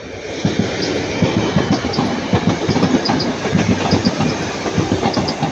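Train passing close by, its wheels clattering over the rail joints in a rapid, uneven clickety-clack over a steady rumble.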